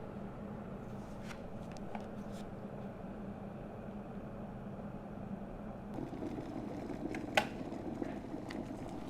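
Cosori glass electric kettle at or near a rolling boil: a steady rumble of boiling water that grows fuller about six seconds in, with light ticks and one sharp click a little over seven seconds in.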